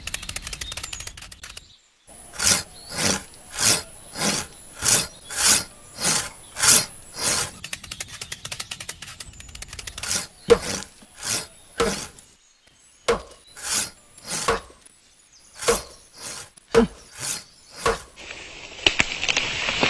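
A saw cutting wood in steady back-and-forth strokes, about two a second. From about halfway, sharp axe chops into wood, about one a second, come in between the saw strokes, and a hiss rises near the end.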